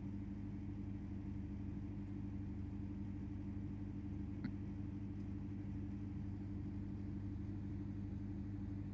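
Steady low electrical hum of room tone, with one faint short click about four and a half seconds in.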